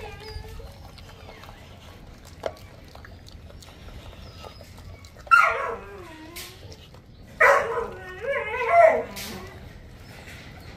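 A dog whining: a short falling whine about five seconds in, then a longer wavering whine about two seconds later, with faint wet chewing and tearing clicks between.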